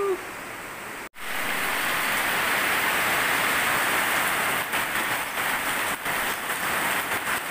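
Heavy rain falling on a corrugated roof and pouring off its edge. It is a steady, even hiss that starts abruptly about a second in.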